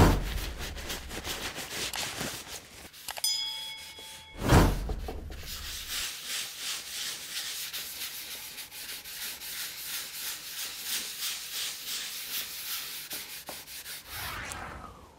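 Cloth rubbing linseed oil into a wooden picture rack: a steady run of quick scuffing strokes on the wood. A short bright chime rings about three seconds in, and there are two low thumps, at the start and about four and a half seconds in.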